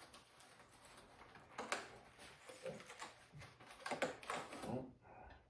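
Faint scratching, tapping and scraping of fingers on a taped cardboard box as it is worked open, with a few louder scrapes about a second and a half in and again around four seconds.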